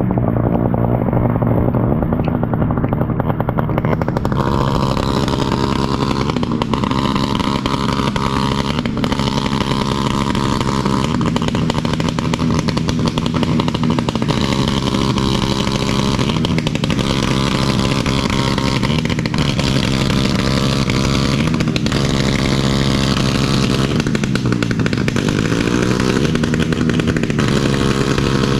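Motorcycle engine running and being revved, its pitch rising and falling repeatedly, with wind hiss from about four seconds in.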